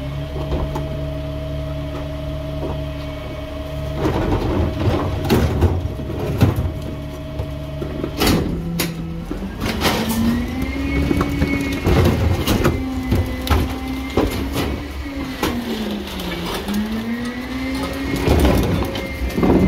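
Rear-loading garbage truck running its hydraulics, a steady whine under the engine, while carts knock against the hopper and rubbish clatters in from about four seconds. A couple of hard bangs come near the middle, after which the whine rises and dips in pitch as the packer blade cycles.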